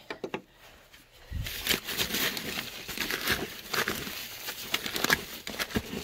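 Newspaper bedding in a worm bin being pulled back and rummaged through: crinkling, rustling paper that starts about a second and a half in, after a few light clicks, and goes on busily.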